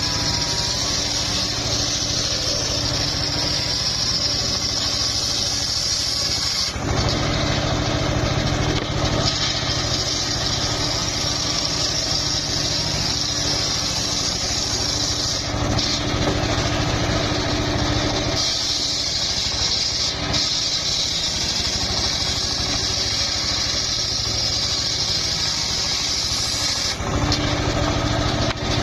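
Homemade circular sawmill running and ripping an old, fairly hard mahogany log. It is a loud, steady machine sound whose tone shifts three times, about 7, 18 and 27 seconds in, between a hissing and a deeper phase.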